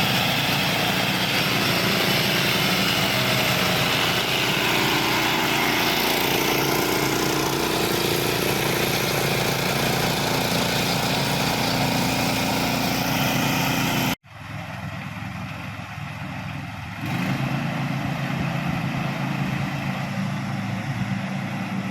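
Small Honda 13 hp engine of a homemade ride-on mower running steadily under load while cutting grass. About 14 s in, the sound cuts off abruptly and comes back quieter, then grows louder again about three seconds later.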